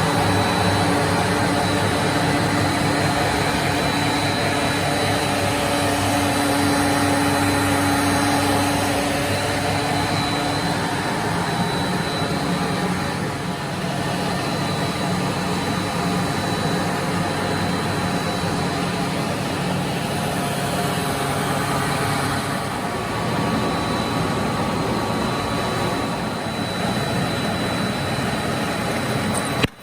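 Plastic pelletizing machine running steadily: a continuous mechanical hum with a thin, steady high whine above it, briefly cut off just before the end.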